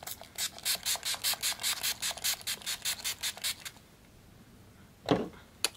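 Pump-mist setting spray bottle spritzed over and over in quick succession, a rapid run of short hissing sprays lasting about three and a half seconds as the pump is got going. Near the end, a brief soft sound and a single sharp click.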